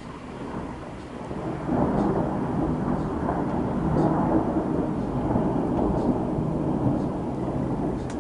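Rolling thunder: a long rumble that builds over the first couple of seconds, holds for several seconds and eases off near the end, with rain pattering throughout.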